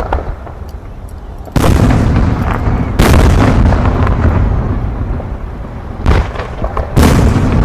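Aerial fireworks shells bursting: four sharp booms about one and a half, three, six and seven seconds in. Each is followed by a long fading tail of smaller crackling pops.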